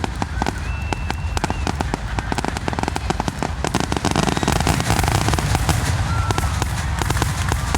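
Fireworks display going off in a rapid, continuous barrage of overlapping bangs and crackles.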